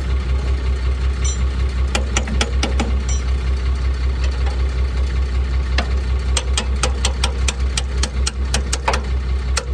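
An engine idling with a steady low hum, under a series of sharp metallic clicks from tools worked on the truck's leaf springs and axle. The clicks come a few at a time early on, then settle into a regular run of about three a second in the second half.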